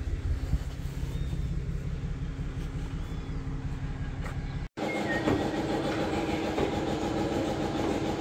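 An engine running steadily with a low, even hum as a tipper trailer's hydraulics are tested. About halfway through it cuts off abruptly and a different steady machine hum, with a higher tone, takes over.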